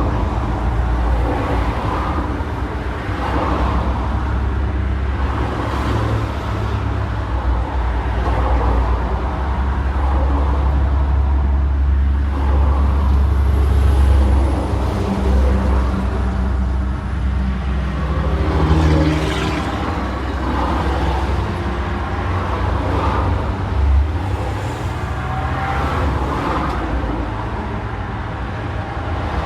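Street traffic: cars running and passing one after another, with a steady low engine rumble from idling or slow-moving vehicles underneath.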